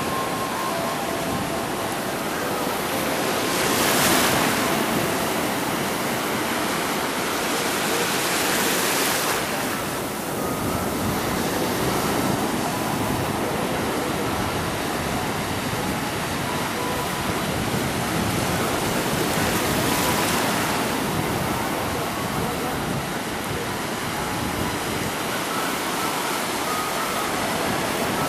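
Ocean surf breaking and washing through the shallows: a steady rushing wash that swells louder now and then as bigger waves come in.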